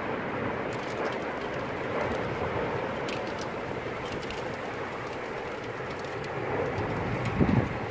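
Steady rushing wind of a tornado-producing storm, with a brief louder low rumble near the end.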